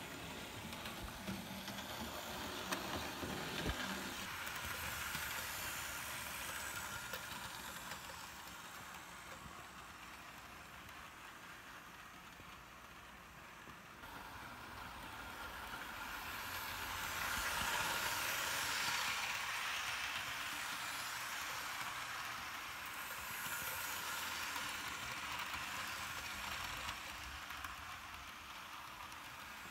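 Hornby Flying Scotsman OO-gauge model train running around its track: the small locomotive's motor and wheels on the rails give a steady whir and hiss, with a few light clicks early on. The sound grows louder as the train comes close, about 17 seconds in and again near 24 seconds.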